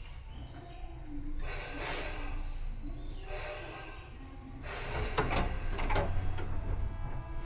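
Tobu 9000 series electric train heard from inside the car while standing before departure: several bursts of hissing and a few knocks from the under-floor equipment over steady electrical tones.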